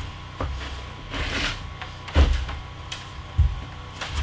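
Wooden stud wall frame being shifted and tilted into place, knocking and thumping against the plywood subfloor several times, with a scrape of wood sliding about a second in. A faint steady electrical hum runs underneath.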